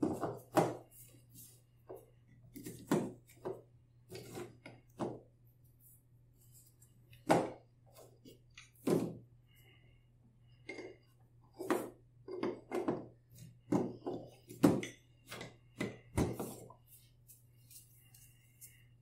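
Wooden toy train track pieces clacking and knocking as they are handled, joined together and set down on a cardboard tabletop. The knocks come singly and in quick clusters at irregular intervals.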